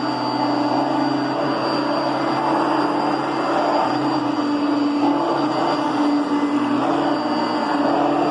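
Kenmore Heavy Duty Plus 6.4-amp upright vacuum cleaner running steadily: a low hum under a thin high whine and a rushing noise, the hum wavering a little in pitch midway.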